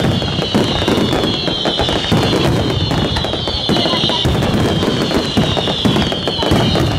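Fireworks finale barrage: a dense, unbroken run of bangs and crackling, with shrill whistles sliding down in pitch one after another above it.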